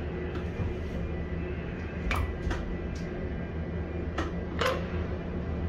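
Steady low machinery hum of a container gantry crane, with four short sharp metallic clicks, two about two seconds in and two about four seconds in.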